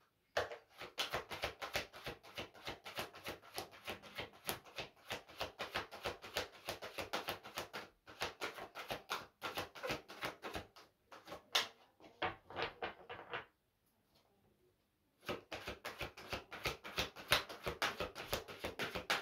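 A deck of oracle cards being shuffled overhand by hand: a quick run of light card-on-card clicks and slaps. It stops for about two seconds about two-thirds of the way through, then starts again.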